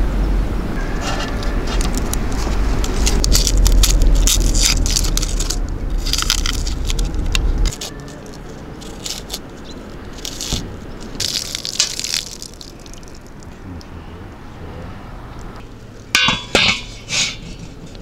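Outdoor food-preparation sounds. A low rumble with crackling clicks cuts off abruptly about halfway through. Then come short scraping clicks as a knife peels an onion, and a few sharp knocks near the end.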